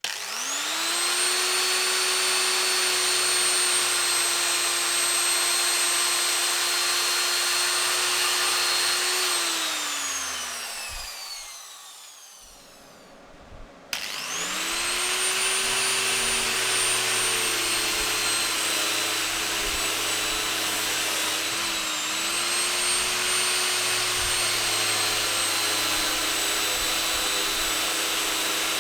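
Angle grinder switched on and spinning up to a steady high whine, then switched off and winding down to a stop after about ten seconds. A couple of seconds later it is started again and runs steadily, with a brief dip in speed partway through.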